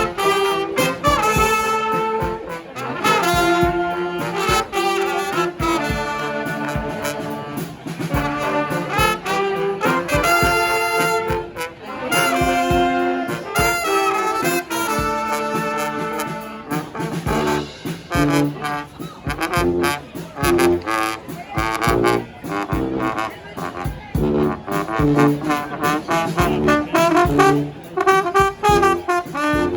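Brass band playing a tune live, with trombones and trumpets carrying the notes.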